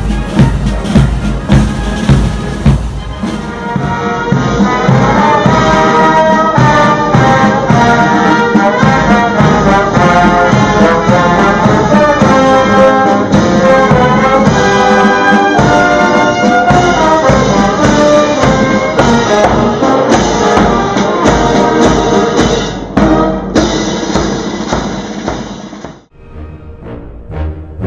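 Military band playing a march: drums alone at first, then brass with drums carrying the tune from about four seconds in. The band music cuts off near the end and quieter, different music begins.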